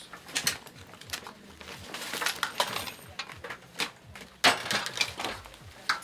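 Irregular metallic clinks, knocks and clatter of forestry tools and gear being handled in a truck's load bed, with a louder knock about four and a half seconds in.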